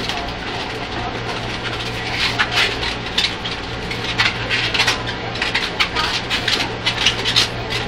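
Long latex modelling balloons squeaking and rubbing against each other as they are twisted into a balloon hat: quick, irregular squeaks, more frequent from about two seconds in. Under them runs the steady low hum of the train carriage.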